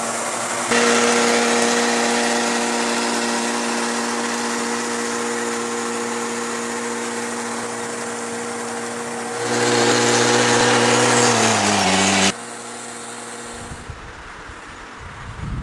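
Small engine of a riding rice transplanter running steadily. The sound jumps in level twice and cuts off suddenly about twelve seconds in, leaving a quieter background.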